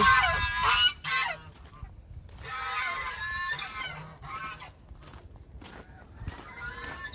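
Domestic geese honking in a loud run of calls at the start, another run about three seconds in, and fainter calls near the end.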